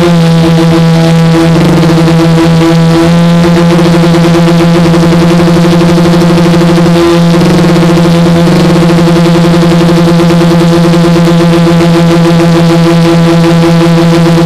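Quadcopter's brushless motors and propellers droning loud and steady at a near-constant pitch as the craft lifts off and climbs, heard from its onboard camera, with a beating, pulsing undertone and brief wobbles in pitch about 1.5 and 7 seconds in.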